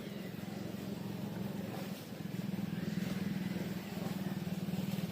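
A small engine running steadily with a low, rapidly pulsing drone that grows a little louder about two seconds in.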